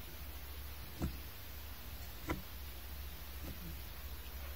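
Soft, regular clicks, one about every second and a quarter, over a low, steady hum.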